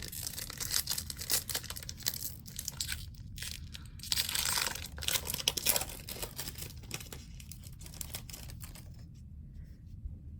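Hockey card pack wrapper being torn open and crinkled, with the loudest tear about four seconds in, the crinkling dying away near the end.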